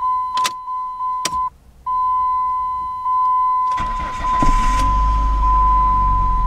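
2000 Dodge Neon's four-cylinder engine cold-started: two clicks, then a little past halfway the starter cranks briefly and the engine catches, sweeping up in pitch and settling into a fast cold idle. A steady electronic warning tone from the dashboard sounds behind it, breaking off once for a moment about 1.5 seconds in.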